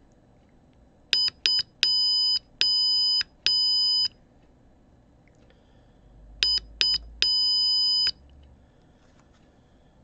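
Arduino piezo buzzer beeping Morse code as a pushbutton is keyed by hand: two short beeps and three long ones (the digit 2), then after a pause two short and one long (the letter U). Each beep starts with a sharp click of the button.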